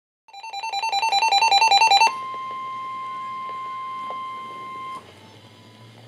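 Midland NOAA weather radio going off for a warning alert: a fast beeping that alternates between two pitches and grows louder for about two seconds. It then gives way to the broadcast's single steady warning alarm tone, which lasts about three seconds and cuts off suddenly, leaving a faint hum.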